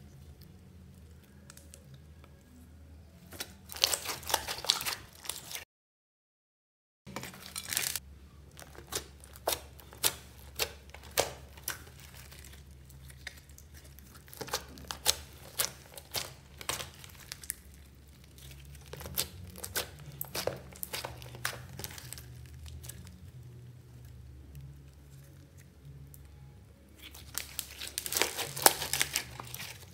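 Hands squishing and stretching thick slime mixed with beads and sequins: sticky crackling and popping clicks, with denser crackling bursts a few seconds in and again near the end. The sound drops out completely for about a second, around six seconds in.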